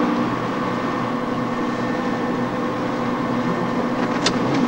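Steady hum of a car engine idling, heard from inside the cabin, with a short sharp click near the end.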